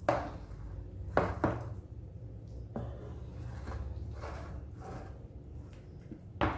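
Wooden spoon knocking and scraping against an aluminium ring mould while cuscuz mixture is spread and pressed into it. There are a few sharp knocks, the loudest near the start, about a second in and near the end.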